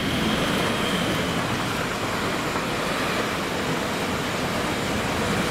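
DB Talent 2 (Class 442) electric multiple unit passing at speed: a steady rushing rumble of wheels on rails and air, with a faint high whine in the first second.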